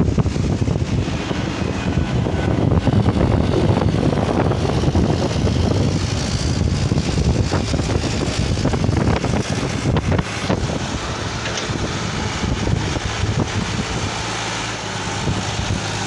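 Diesel tractor engine running under load as it hauls a heavily loaded sand trolley, mixed with strong wind buffeting the microphone in a dust storm.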